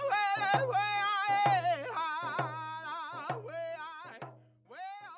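A man singing a First Nations song in a high, held voice with wavering pitch over a drum struck about twice a second. The song trails off near the end.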